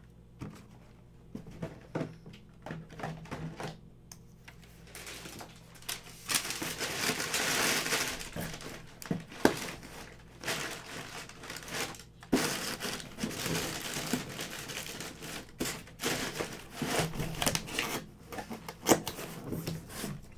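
Trading cards and their plastic packaging being handled: crinkling and rustling with many small sharp clicks and taps, densest for a few seconds in the middle.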